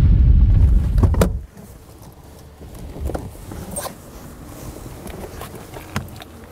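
Loud low rumble of a vehicle on the move, which stops abruptly about a second and a half in. A few light clicks and knocks follow.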